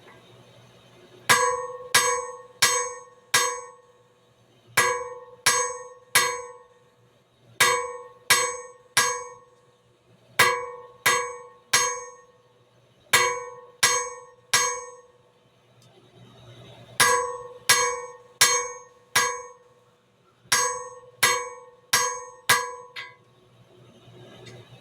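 Hand hammer striking hot steel on an anvil, flattening the end of a drill bit. The strikes come steadily in runs of three or four blows with short pauses between runs, and each blow rings with a clear metallic tone.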